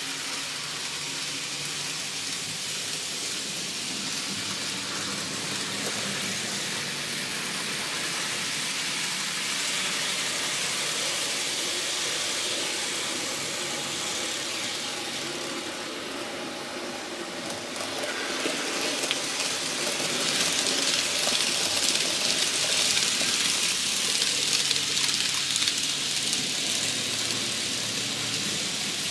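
N scale model trains running on the layout: a steady hissing whir of small motors and wheels on the track, with a faint low hum, growing louder about two-thirds of the way through.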